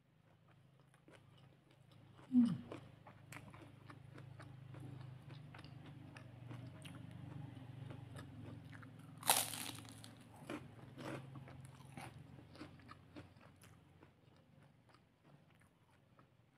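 Close-up eating sounds: a person chewing and biting into a crisp fried cracker, with many small crunches and two loud sharp crunches, about two seconds in and about nine seconds in.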